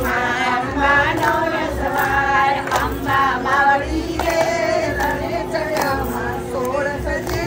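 Several voices singing together in chorus over a steady held tone.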